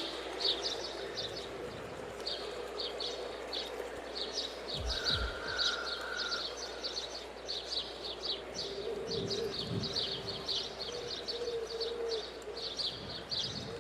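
Small birds chirping: many short high chirps repeating irregularly, over a faint steady hum.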